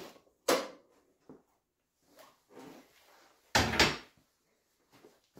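Metal clunks from a homemade sheet-metal brake being worked and the steel sheet handled: a sharp knock about half a second in, a few faint knocks, then a louder clatter lasting about half a second, a little over three seconds in.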